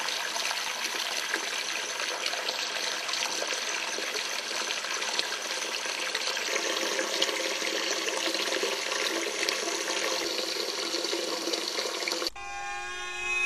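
Water running steadily from a tap into a bathroom sink. It cuts off suddenly near the end, and a steady held tone with several pitches takes over.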